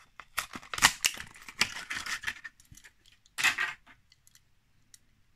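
Plastic blister of a Hot Wheels card being cracked open by hand: a run of short crackling tears as the blister is peeled from the cardboard, a louder rip about three and a half seconds in, then a few light clicks as the loose car is handled.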